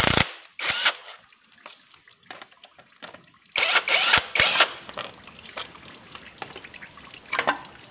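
Cordless power driver spinning the bolts off an engine's cooling-fan hub in short bursts: a brief one about half a second in, then a longer one from about three and a half seconds. Water trickles and drips in between.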